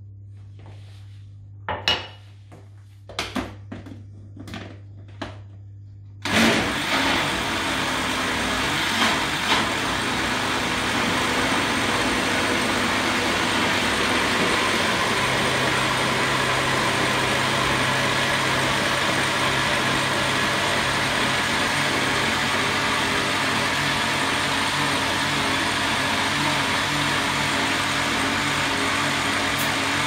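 A few clinks and knocks as sugar is tipped into a blender jar from a cup, then about six seconds in the countertop electric blender switches on and runs steadily, mixing cornmeal cake batter.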